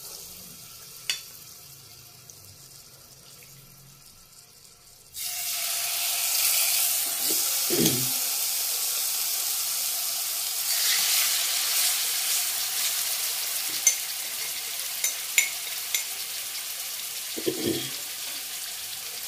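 Marinated chicken breast pieces frying in hot oil in a pan: a faint hiss, then about five seconds in a loud sizzle starts abruptly and carries on, swelling twice as more pieces go in, with scattered sharp pops and ticks.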